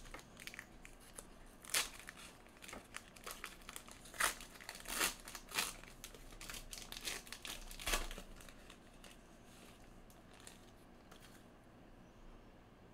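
Foil wrapper of a Panini Elite basketball trading-card pack being torn open and crumpled, with irregular crinkling and tearing crackles. Near the end only a faint rustle remains as the cards are slid out.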